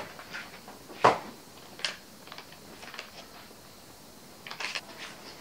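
Grocery packets handled and set down on a wooden table: a sharp knock about a second in, a few lighter taps, and a short crinkle of plastic packaging near the end.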